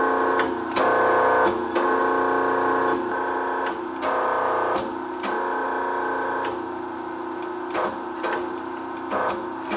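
Whitney hydraulic punch press running: its hydraulic pump and rotary phase converter give a steady electric hum that steps louder and quieter several times as the ram is cycled, with about a dozen sharp clicks scattered through it.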